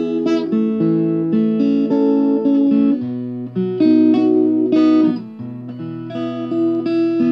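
Solo acoustic guitar playing an instrumental passage without singing, picked notes ringing one after another, with a low bass note coming in about three seconds in.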